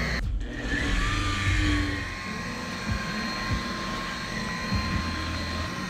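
Electric DeWalt polisher running with a compounding pad, cutting the oxidised gel coat of a boat deck: a steady motor whine that sets in about a second in and holds, over an uneven low rumble.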